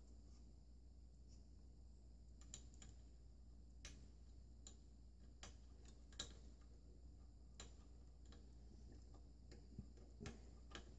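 Near silence with faint, irregular small clicks and ticks from hands handling wiring and plugging a fan lead into a 3D printer's control board, the strongest about six seconds in.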